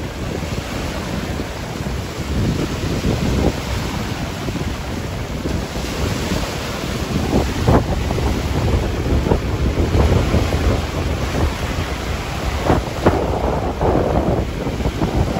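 Strong gusty wind of a storm before rain, buffeting the microphone with low rumbling gusts.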